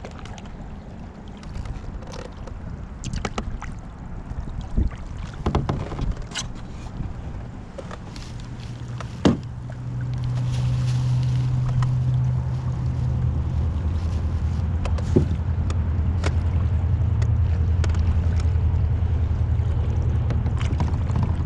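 Knocks and clicks of gear being handled in a fishing boat, then the boat's motor running with a steady low hum from about ten seconds in, its pitch dropping a little a few seconds later as the boat moves on to set the next catfish float.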